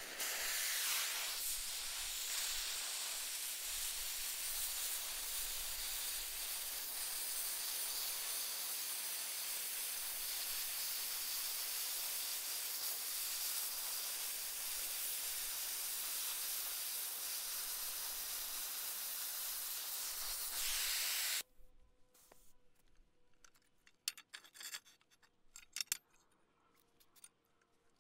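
Oxyacetylene cutting torch hissing steadily as it cuts through steel plate. It stops suddenly about 21 seconds in, followed by a few faint light clicks.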